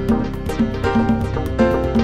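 Instrumental background music with a steady beat and sustained pitched notes.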